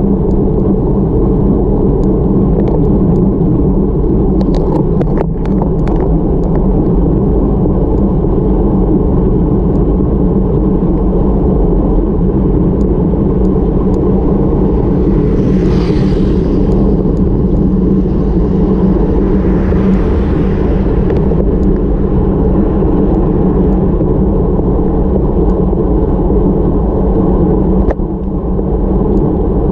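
Steady, heavy wind rumble over the microphone of a bike-mounted action camera on a road bike moving at about 25 to 33 km/h. A few light clicks come about five seconds in, and two brief swells of hiss come around the middle.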